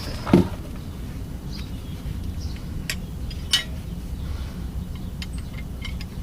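Scattered metallic clicks and knocks of brake pads and their hardware being handled and fitted: a sharp knock about half a second in, two more around three seconds in, one with a short ring, and a run of light ticks near the end.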